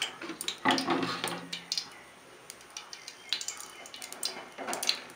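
An aluminium kadai on a gas stove being handled with a cloth: light knocks and scrapes of the pan, with scattered small ticks. There is a short burst of noise about a second in and another near the end.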